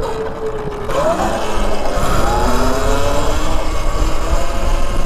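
Motorcycle engine revving during wheelie practice: its pitch rises about a second in, then bends and falls again over the next couple of seconds.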